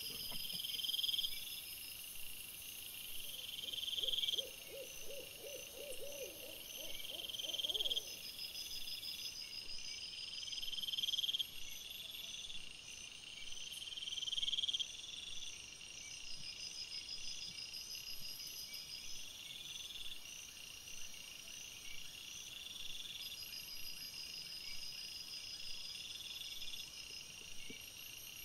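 Crickets and other night insects chirping, with a loud chirping burst repeating every three to four seconds over a steady high trill. Between about four and eight seconds in, a low, rapidly pulsing call joins them.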